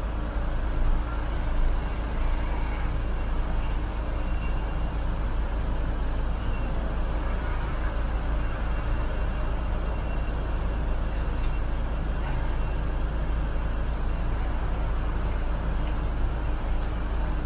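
Steady hum and street-traffic noise on the upper deck of a Hong Kong double-decker electric tram standing still at a junction, with one constant tone running under it.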